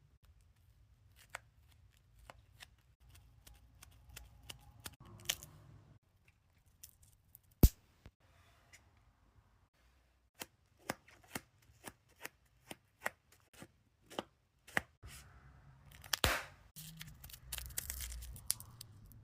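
Sharp pops and clicks at an uneven pace, with one much louder pop about eight seconds in and a denser burst of crackling near the end.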